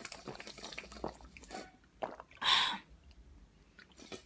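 A person eating and drinking up close: small mouth and liquid sounds, with one louder, breathy noise about two and a half seconds in.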